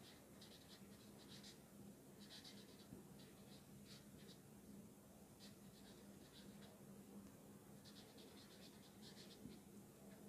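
Marker pen squeaking and scratching across paper in short strokes as words are handwritten, faint.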